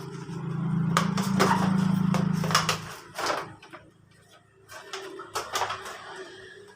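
Sharp metal clinks and knocks of tools and engine parts being handled, over a steady low mechanical hum that swells for the first three seconds and then drops away.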